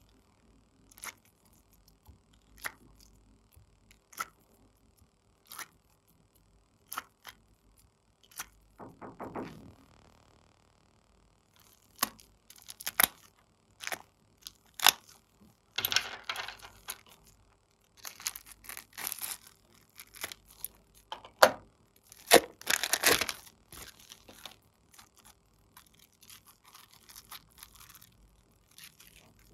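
Purple slime being squeezed and pulled by hand: sharp sticky clicks and pops, single and about a second and a half apart at first, then a squishy stretch, then dense crackling clusters, loudest a little past two-thirds through.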